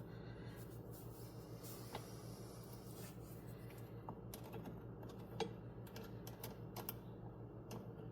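Scattered light clicks and taps, irregular and a few seconds apart, over a steady low hum.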